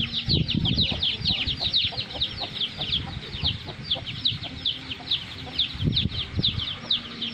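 Chickens: chicks peeping in a rapid, unbroken stream of short, high, falling peeps, with a hen's low clucking about half a second in and again around six seconds.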